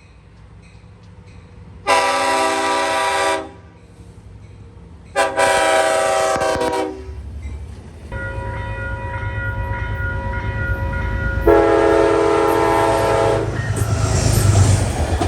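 Long Island Rail Road M3 electric train sounding its multi-tone horn for a grade crossing: two long blasts, then a longer held blast that swells as the train draws near. The rumble of the train building up and passing grows under it near the end.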